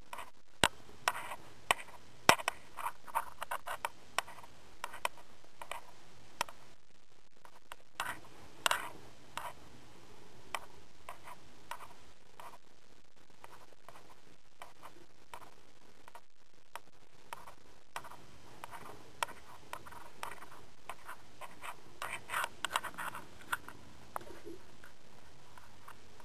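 Cloth towel rubbing a black cat's fur: rustling and scratching with scattered sharp clicks, in several bursts, busiest near the start, about a third of the way in, and again near the end.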